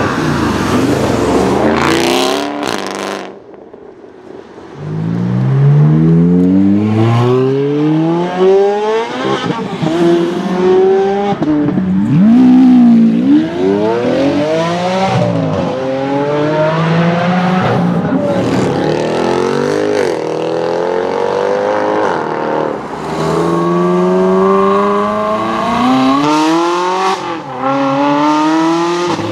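Several supercar engines accelerating hard one after another, each note climbing in pitch and dropping back at every upshift, with loud exhaust.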